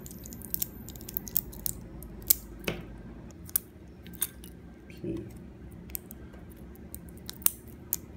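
Small pliers picking and snapping support material off a 3D-printed plastic part, making irregular sharp clicks and cracks; the support is fused tightly to the piece.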